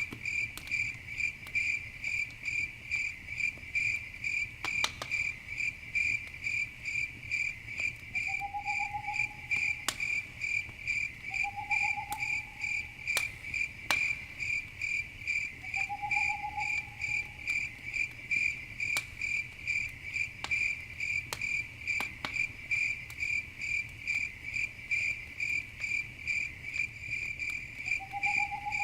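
Crickets chirping in a steady, even rhythm, with occasional sharp pops and crackles from a campfire. A short lower note sounds four times, several seconds apart.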